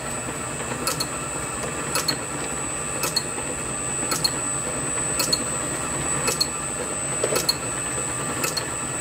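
Steady mechanical hum with a high, thin whine and a light click about once a second.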